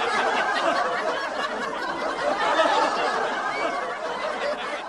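A crowd of people laughing together, many voices overlapping, fading away near the end.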